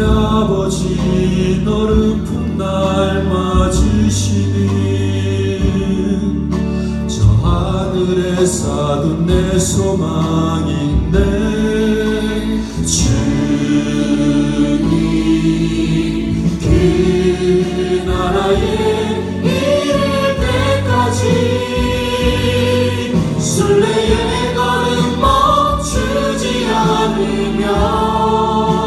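A Christian praise song performed live: voices singing together over a band with steady bass notes and occasional sharp, crisp hits.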